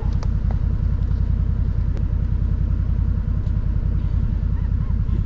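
Four-wheel-drive vehicle's engine running steadily, its sound mostly low-pitched with an even, rapid pulsing.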